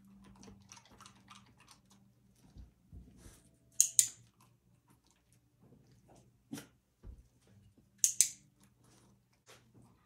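A dog chewing and crunching food treats: soft, irregular small clicks and crackles. Three brief, sharp hissing sounds stand out, about four seconds apart, with a single knock between the second and third.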